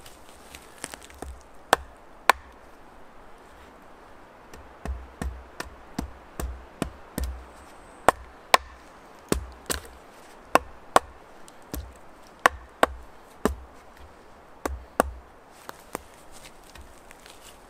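Axe chopping into a wooden board: a long run of sharp, irregular knocks, one or two a second, many with a dull thud under them, loudest in the middle stretch.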